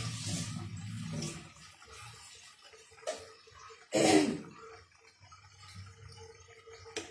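Salted water boiling with pasta in a frying pan, bubbling and hissing, loudest in the first second and then dying down to a faint simmer. One short, louder noise about four seconds in.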